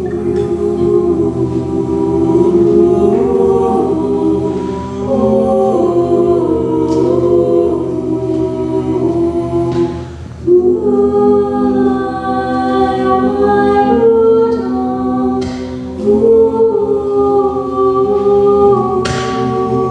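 A cappella vocal group singing slow, sustained chords with no instruments. The chords break off briefly about halfway through, then resume.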